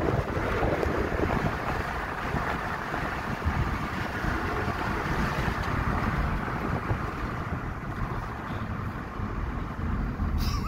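Steady rush of wind and road rumble from inside a moving car, with no clear engine note standing out.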